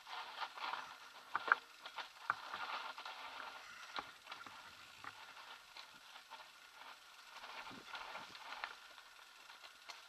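Kona Satori 29er mountain bike rolling down a dirt singletrack: tyres running over dirt and stones, with irregular clicks and rattles from the bike.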